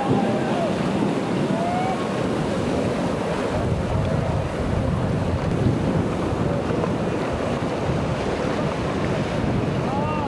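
Steady wind buffeting the microphone over breaking surf, with jet ski engines running faintly under it.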